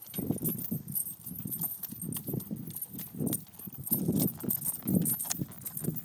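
Saddlebred horse's hoofbeats thudding on soft dirt as it passes close by, a run of dull, uneven thuds that are loudest about four to five seconds in.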